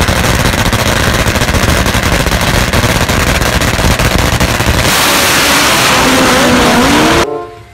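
Top Fuel drag-racing motorcycle's engine running loud with a rapid crackle. About five seconds in it pulls away in a burnout, engine note rising with the tyre spinning, before the sound cuts off suddenly near the end.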